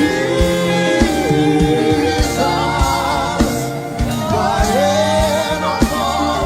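Gospel worship music: a voice sings long, sliding wordless lines over held instrumental chords, with frequent drum hits.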